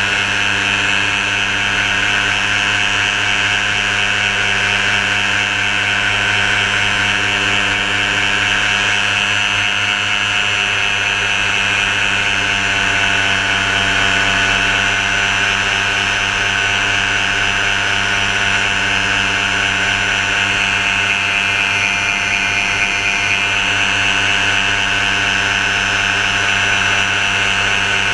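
Steady motor-like drone at one constant pitch, with a strong high hiss over it and no change in speed.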